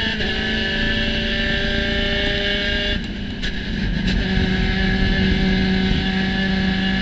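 Spec Racer Ford Gen 3 race car engine running hard at steady revs. About three seconds in the engine note drops away briefly, with a couple of sharp clicks, then comes back steady and a little louder.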